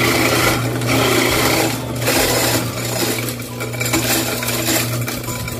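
Electric ice crusher running with a steady motor hum under a rough, uneven grinding of ice; it shuts off suddenly at the end.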